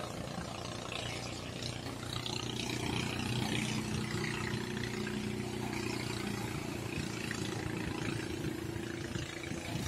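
Waves surging and washing over seaside rocks, with wind on the microphone. A steady engine hum comes in about two and a half seconds in and fades near the end.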